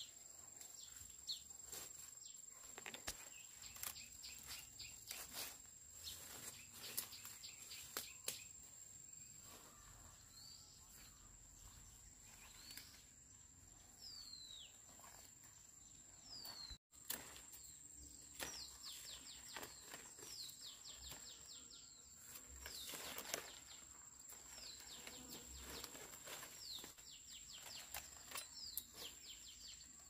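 Faint rural outdoor ambience: birds giving short falling chirps, at times in quick runs, over a steady high-pitched whine. Scattered clicks and rustles come through as well.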